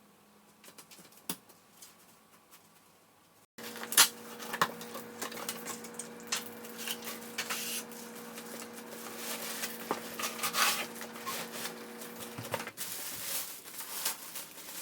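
Scattered light clicks and taps in a small room, faint at first. About three and a half seconds in they turn suddenly louder over a steady low hum, which stops shortly before the end.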